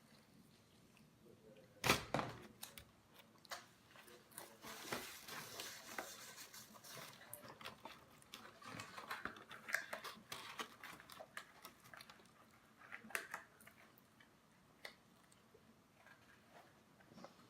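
Close-up eating sounds: a person chewing and biting food, with scattered clicks and rustling. A sharp knock comes about two seconds in and is the loudest sound.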